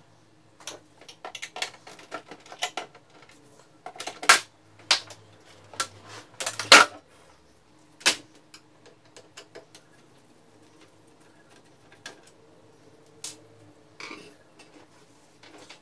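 Plastic clicks, knocks and clatter of an HP LaserJet Pro M278–M283 laser printer's casing and panels being handled and turned upright on a counter. The knocks come thick for the first eight seconds, loudest around four and seven seconds in, then thin out to a few single clicks.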